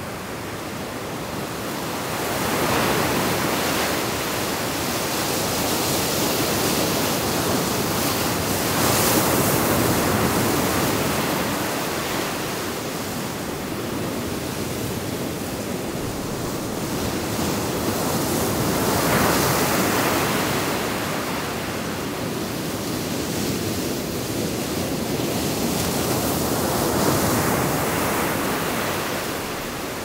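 Sea surf breaking over rocks and washing up a sandy beach, the rush of water swelling and ebbing four times, several seconds apart.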